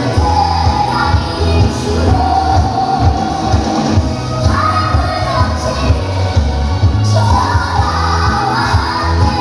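Loud pop song with a sung melody over a heavy, steady drum beat.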